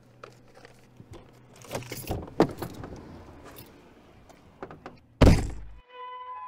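Rustling and clinking of someone moving about inside a car, with keys jangling, then a loud thud of a car door slamming shut about five seconds in. Soft string music starts right after.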